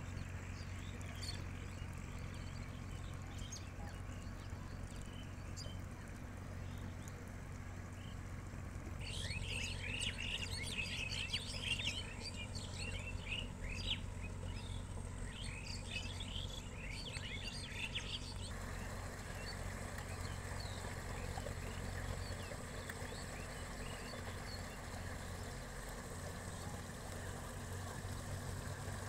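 Small birds chirping, a few scattered calls at first and then a dense chorus of quick chirps through the middle that stops abruptly, over a steady low hum.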